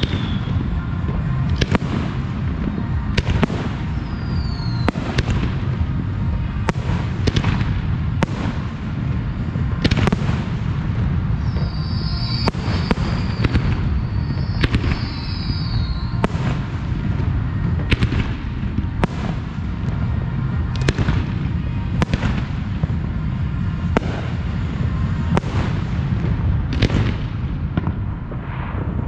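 Professional fireworks display: shells bursting in a steady run of sharp bangs, about one every second, over a continuous low rumble, with a few high whistles among them.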